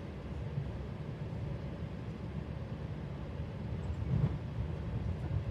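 Steady low rumble inside a Sydney Trains V set double-deck electric intercity carriage running along the line, with a brief louder bump about four seconds in.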